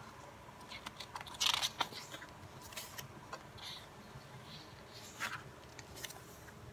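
Paper pages of a K-pop album photobook being turned by hand: several short papery rustles and flips, the loudest about a second and a half in.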